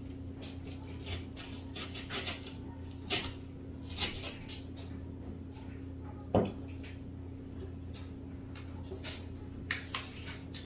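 Short scraping strokes of a hand tool cutting back the edge of a drywall ceiling hole, over a steady low hum. A single louder knock comes about six seconds in, and a few plastic clicks follow near the end as the recessed-light fixture is handled.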